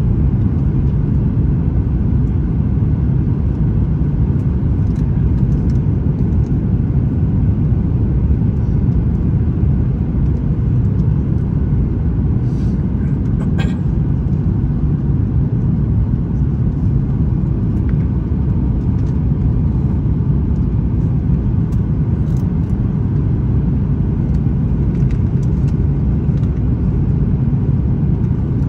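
Steady, even low rumble of airflow and engines heard inside the cabin of a Boeing 737 MAX 9 airliner.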